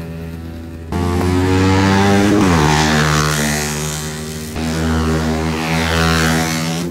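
Supermoto race motorcycles running on the track, the engine note swelling and fading as bikes pass, with a drop in pitch about two and a half seconds in.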